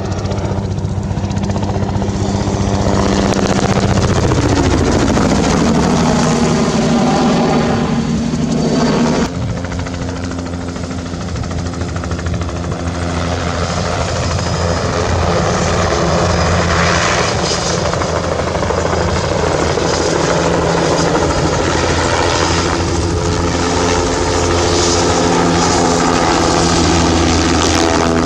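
Bell 206 JetRanger helicopter flying a low display: the steady beat of its two-bladed main rotor together with the turbine engine. The pitch slides down about four seconds in as it passes, and the sound changes abruptly to a lower level about nine seconds in.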